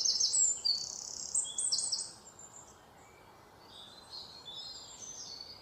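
White-throated fantail singing: a quick run of high, thin notes that stops about two seconds in, followed by fainter high notes near the end.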